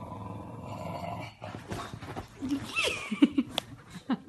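English bulldog vocalising: about a second and a half of steady rough, breathy noise, then a run of short grunts and higher calls that bend in pitch in the last two seconds.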